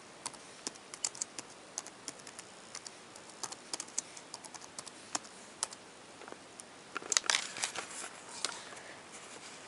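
Typing on a laptop keyboard: irregular key clicks, with a denser, noisier flurry about seven seconds in.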